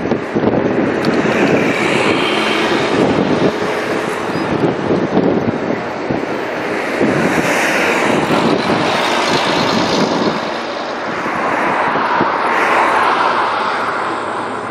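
Road noise of a moving vehicle with wind on the microphone, swelling and easing a few times.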